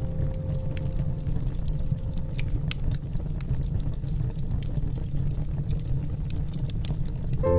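Wood fire burning in a fireplace, with a steady low rumble and many sharp, irregular crackles and pops.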